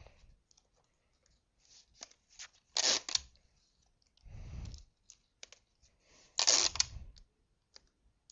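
Sticky tape pulled off the roll twice, two loud rips about three and a half seconds apart, with paper rustling and small handling clicks in between as it is wrapped around a rolled paper tube.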